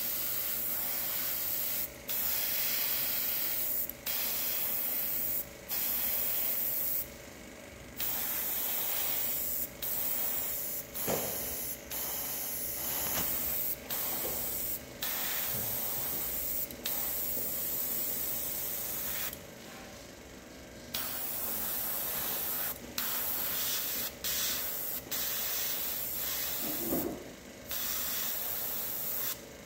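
Gravity-feed airbrush spraying grey surfacer: a steady hiss of air and paint that cuts out briefly every second or two, with two longer pauses of a second or more.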